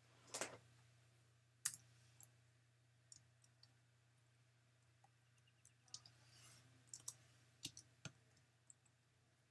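Near silence with a low steady hum, broken by scattered faint clicks, the clearest about half a second and just under two seconds in, and a few more close together near the end.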